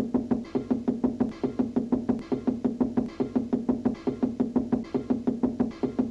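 Cartoon music with rapid, evenly spaced knocking on a wall, about five knocks a second, over a steady low musical tone.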